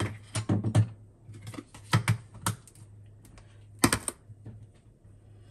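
Sharp clicks and knocks of metal espresso parts being handled: the portafilter and tamper of a CASABREWS 3700Gense espresso machine, with a quick cluster at the start, another about two seconds in, and a single loud knock near four seconds.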